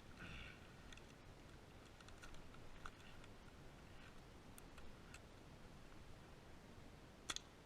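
Near silence with faint scattered clicks, and one sharper click near the end.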